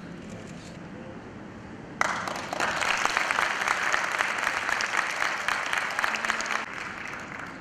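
Audience applauding: dense hand-clapping that starts abruptly about two seconds in and fades out near the end.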